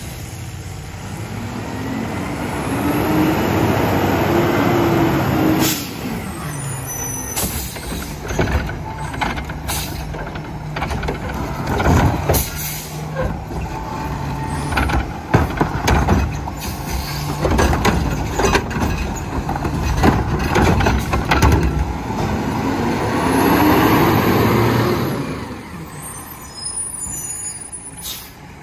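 Front-loader garbage truck with a Curotto-Can arm at work: the engine revs up and back down twice, about two seconds in and again about twenty-two seconds in. Between the revs come repeated sharp metal bangs and clanks.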